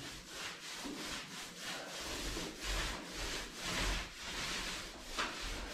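Paint roller on an extension pole rolling paint onto a wall: a soft swishing rub that swells and fades with each stroke.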